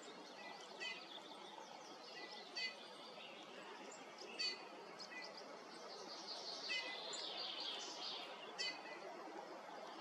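Forest songbirds calling: a short, sharp call repeated about every two seconds over a steady background hiss, with a brief burst of higher twittering about two thirds of the way through.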